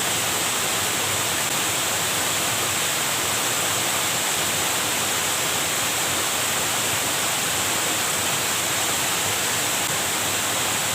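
River water flowing and rushing, a steady, unbroken hiss.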